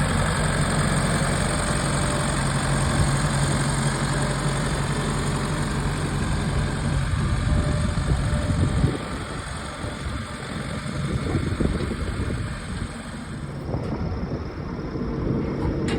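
An engine idling steadily, which drops away about nine seconds in, leaving an uneven low rumble like wind on the microphone.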